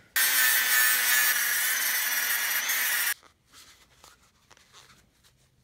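A small high-speed rotary tool grinding old glue out of the bore of a Bridgeport mill's variable-speed pulley disc. It runs loud and steady for about three seconds, then cuts off suddenly. After it come faint rubs of a shop towel wiping the disc.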